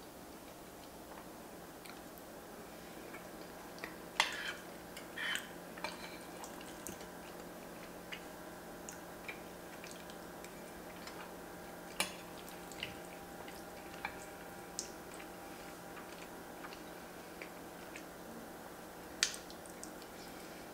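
Close-miked eating sounds: a metal fork scraping and clicking against a ceramic baking dish as it scoops cheesy shell pasta, with wet chewing and mouth sounds between bites. Sharp clicks and taps come scattered throughout, the loudest about four, twelve and nineteen seconds in, over a low steady hum.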